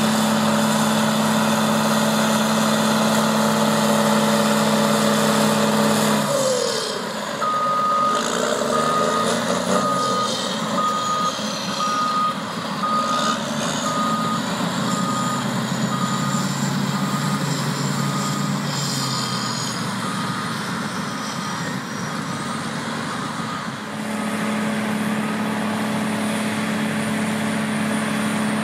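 Crawler bulldozer's diesel engine running steadily. About six seconds in the engine note drops and its backup alarm starts beeping about once a second for some fifteen seconds, then the engine settles back to a steady note near the end.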